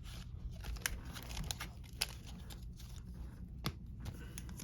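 Baseball trading cards and their pack being handled: soft papery rustling as cards slide over each other, with a few sharp clicks.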